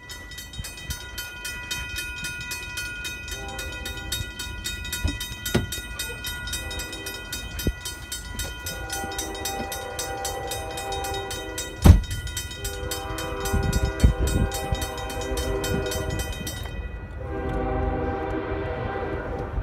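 Grade-crossing bell ringing steadily until it stops about 17 seconds in, while a freight locomotive's air horn sounds a series of blasts that grow louder, the later ones long. A sharp thump about 12 seconds in is the loudest sound.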